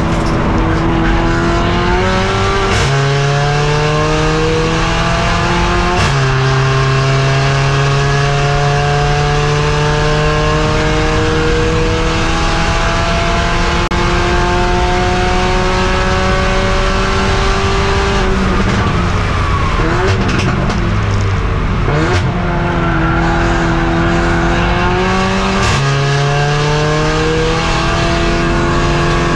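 Mercedes-AMG CLA45 race car's turbocharged four-cylinder engine heard from inside the car at racing pace. It pulls hard with rising pitch, upshifting about 3 and 6 seconds in and then pulling long in a higher gear. Past the middle it slows with several downshifts, then accelerates again with another upshift near the end.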